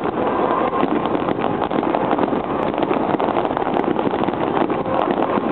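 Aerial fireworks going off in a dense barrage: many rapid crackles and bangs running together into a loud, steady din.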